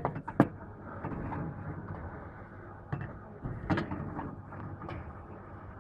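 Glass beer bottles knocking against the intake as they are pushed into a reverse vending machine, then the machine's conveyor belts running with a steady hum while it scans them, with a few more knocks as the bottles move along.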